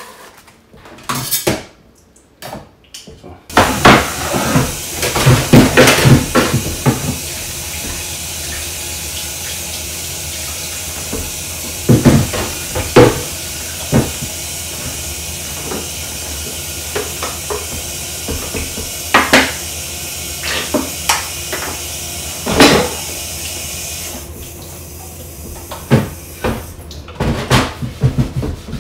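Kitchen tap running into a stainless-steel sink while a wooden cutting board is rinsed and scrubbed, with repeated clatters and knocks of the board and dishes against the sink. The water comes on suddenly a few seconds in and runs more gently for the last few seconds.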